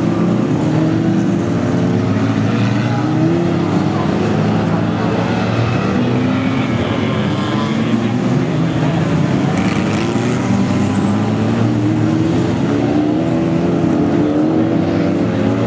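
Several small saloon racing cars' engines running hard around an oval track, the overlapping engine notes rising and falling as cars pass and lift off for the bends.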